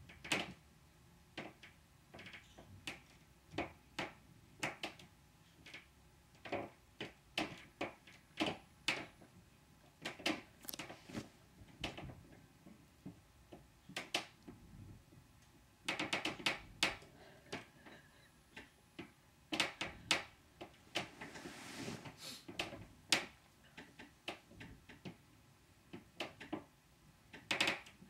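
Footsteps of upstairs neighbours walking on a noisy floor, heard through the apartment ceiling as irregular knocks and thuds, some in quick runs. A longer scraping sound comes about three-quarters of the way through.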